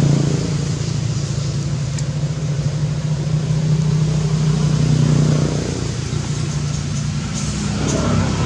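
A steady low engine hum, like a motor vehicle running at idle, swelling and easing slightly in loudness.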